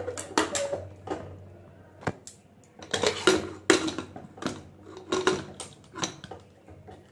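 Aluminium pressure cooker's lid being fitted and closed: a string of metal clanks and scrapes.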